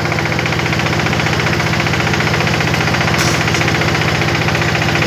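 Silage baler-wrapping machine running steadily: an engine with a fast, even beat. A brief higher rattle comes about three seconds in.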